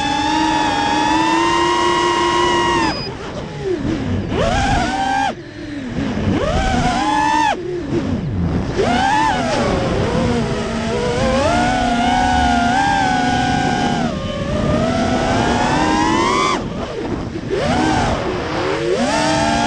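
FPV quadcopter's brushless motors and propellers whining, the pitch held steady for about three seconds and then swooping down and up again and again as the throttle changes. The quad oscillates at mid-throttle even after two motors were replaced, and the owner suspects the propellers.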